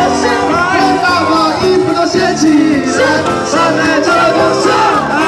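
Live band playing an upbeat pop-rock song through a PA, with a male singer over electric bass and saxophone.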